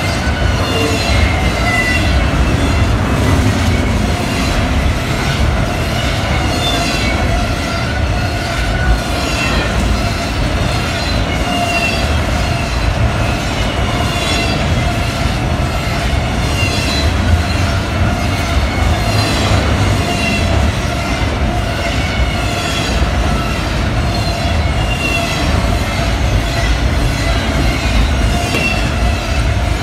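Double-stack intermodal container well cars rolling past at speed: a loud, steady rumble of wheels on rail, with a regular clicking of wheels over rail joints and thin, high-pitched wheel squeals coming and going.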